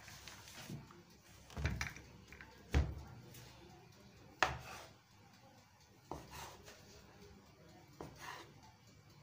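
A large kitchen knife cutting through soft dough and knocking on a wooden chopping board, five separate knocks about one to two seconds apart as the dough log is cut into pieces.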